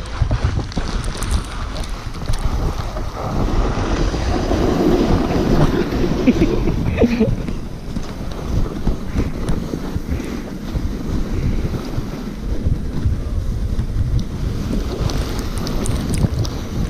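Sled runners scraping and hissing over packed snow at speed, mixed with wind rushing over the microphone. The noise swells for a few seconds in the middle.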